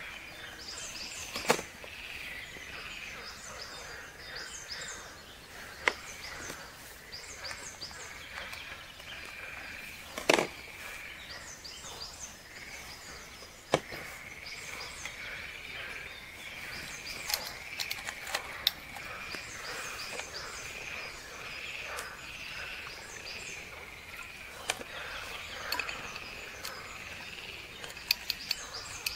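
Forest ambience: birds chirping over a steady high-pitched drone, broken by sharp clicks and knocks of camp cookware being handled, the loudest about a second and a half in and about ten seconds in, with a quick cluster near the end.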